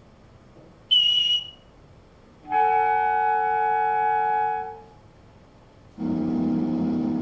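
Three separate held tones, each at one steady pitch, played as examples of sustained sounds with fixed pitch. A short high tone comes about a second in, then a mid-pitched tone held for about two seconds, then a lower, fuller tone that begins near six seconds.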